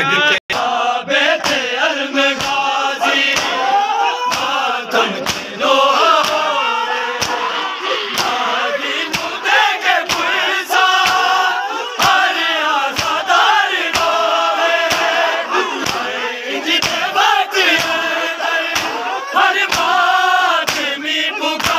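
Crowd of men chanting a mourning lament together while beating their chests in matam: sharp hand slaps on bare chests land together in a steady rhythm, about one and a half a second, under the chanting.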